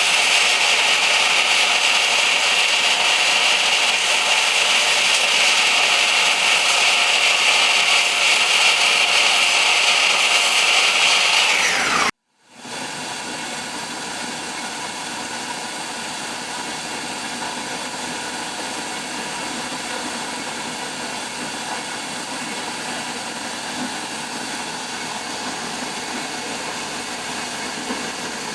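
A power saw cutting door frame stock, a loud steady high whine. About twelve seconds in it stops abruptly and a quieter steady machine drone follows.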